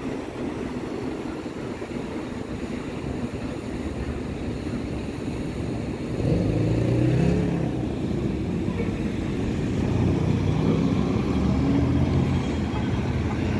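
City street traffic: cars passing through an intersection. About six seconds in a vehicle engine close by grows louder, its pitch wavering, and it goes on as the vehicle passes.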